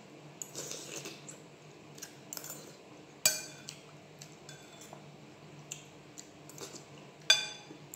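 A metal spoon clinking and scraping against a white ceramic soup bowl while eating. There are scattered soft clicks and two sharp, ringing clinks, about three seconds in and near the end.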